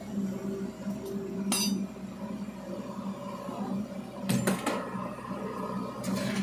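A metal bucket clanking against the steel of a machine as it is handed up and tipped into the hopper, with sharp clanks about a second and a half in and again after four seconds. Under it, a steady low machine hum.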